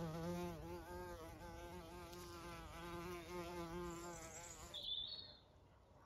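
A bee buzzing in flight close by, a steady drone whose pitch wavers up and down. It cuts off suddenly about five seconds in, and a brief high chirp follows.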